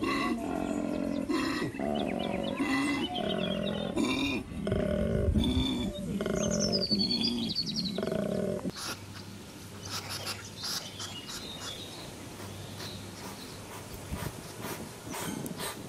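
Koala bellowing: a run of deep, rasping, snore-like grunts that stops abruptly about nine seconds in. A hedgehog follows, sniffing and rustling in grass with quick small clicks.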